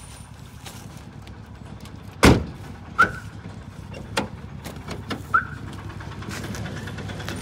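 A loud sharp knock about two seconds in, then a few lighter clicks and clinks, over a low steady rumble.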